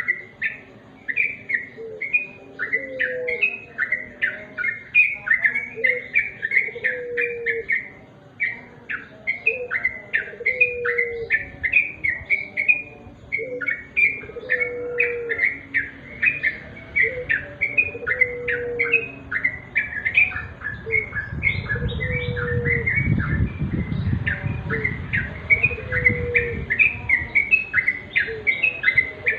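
Yellow-vented bulbul (trucukan) calling in a fast, continuous run of short bubbly chirps. A lower call repeats about every two seconds underneath, and a low rumble swells up for a few seconds in the second half.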